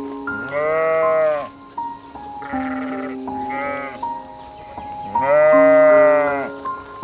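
Sheep bleating about four times, the loudest and longest bleat coming about five seconds in, over background music with long held notes.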